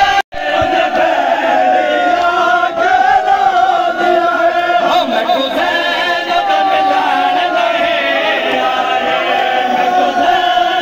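A large crowd of men chanting together in unison, loud and continuous: the mourning chants of a religious procession. The sound cuts out for a split second just after the start.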